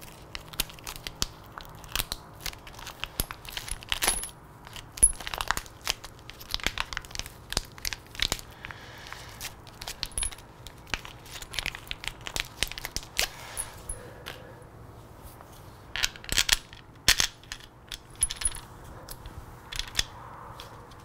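Small metal hardware clinking and tapping: bolts and washers being handled and set into the case saver plate, in a string of irregular sharp clicks with brief small metallic rings.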